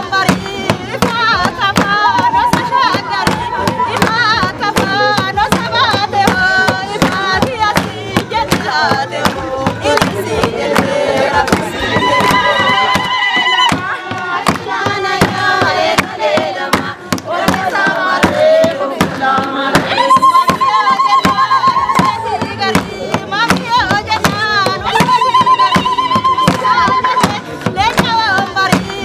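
A group of women singing a traditional Oromo wedding song together, over hand-clapping and a sharp, steady struck beat.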